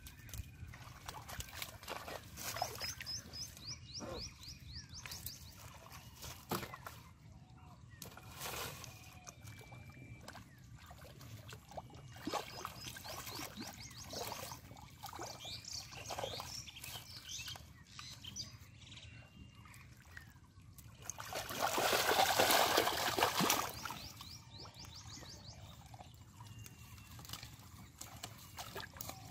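Hands squelching and splashing in shallow muddy water, in short irregular strokes, while catfish are groped for and lifted out by hand. A longer, louder burst of splashing comes about three quarters of the way through.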